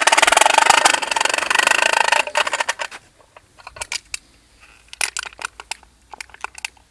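Empty aluminium drink can crushed onto a bicycle wheel, clattering rapidly as the wheel turns in imitation of a motorbike. The clatter dies away about two and a half seconds in as the wheel slows, leaving a few scattered clicks and knocks.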